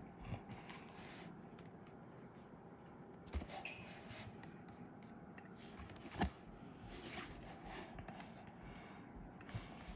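Quiet room tone with a few faint, short clicks and rustles, like handling noise or taps on a laptop.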